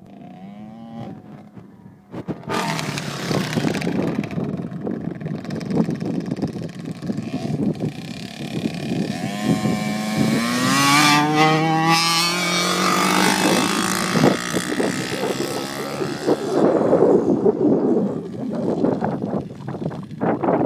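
Two small off-road dirt bikes running and revving as they ride past on a dirt track. The engine pitch climbs and drops several times, most clearly about halfway through.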